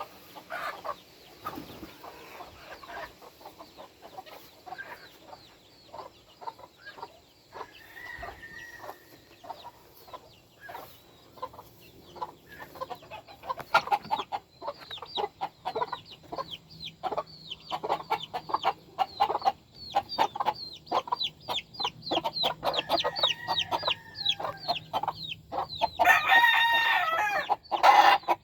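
Game chickens clucking with many short, quick calls, growing busier about halfway through. A rooster crows once loudly near the end.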